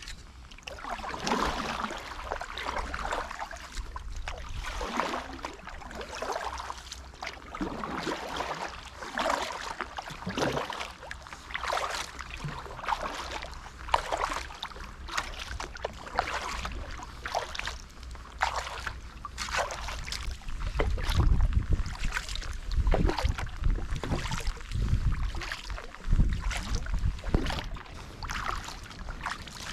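Kayak paddle strokes splashing in the water, about one a second and steady. A low rumble joins in over the last third.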